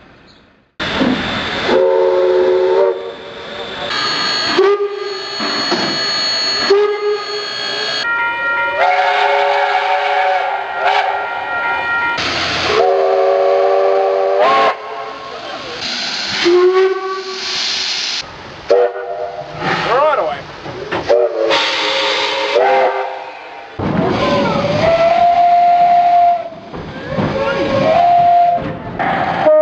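Steam locomotive whistles, one recording after another: a string of short and long blasts, most sounding several notes at once like chime whistles, some sliding in pitch as the steam comes on or off. Steam hiss runs around the blasts.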